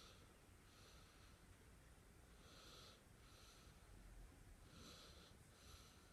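Faint snoring breaths of a sleeping one-year-old boy, an in-and-out pair about every two seconds.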